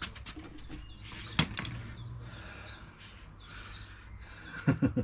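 A sharp click a little over a second in and a quick run of knocks near the end, from bolts and parts being handled while fitting a motorcycle pannier rack brace. Birds chirp in the background.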